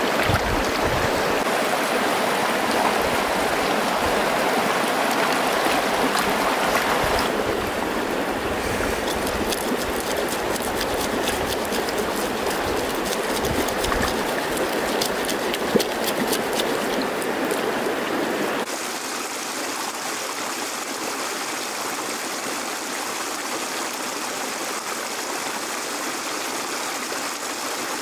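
A shallow mountain stream rushing and splashing over rocks, a steady water rush that shifts abruptly in tone twice. The middle stretch carries small clicks, with one sharp knock a little past halfway.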